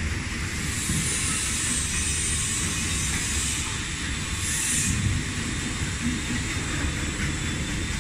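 Automatic stainless-steel grapefruit pulp separator running: a steady mechanical rumble with a hiss over it.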